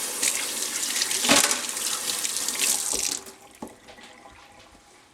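Water running from a tap for about three seconds, then shut off, with a couple of light knocks as a part is handled in the sink.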